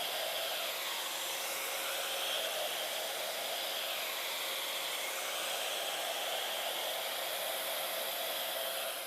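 Hand-held blow dryer running steadily: an even rush of air with a faint hum, fading out near the end.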